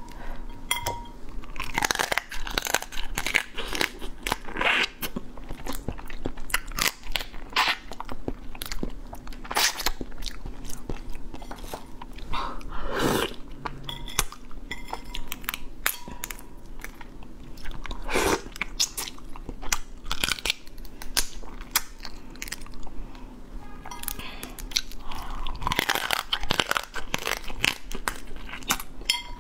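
Cooked crab shell crunching and cracking as it is bitten and chewed, with many sharp cracks coming in quick clusters.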